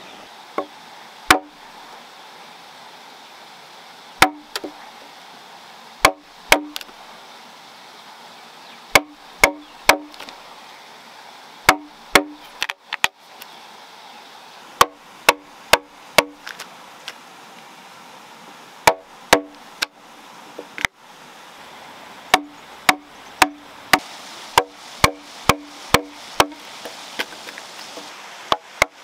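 Wooden mallet striking a wooden-handled steel chisel, cutting a mortise into a timber beam: irregular sharp knocks, single or in quick runs of several blows, each with a short ring.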